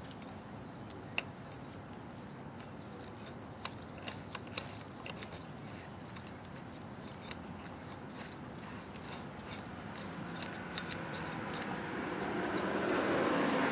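Pulley puller on a power steering pump being turned by hand: scattered light metallic clicks and ticks from the screw and nut, over a steady hiss. A louder noise swells in over the last couple of seconds.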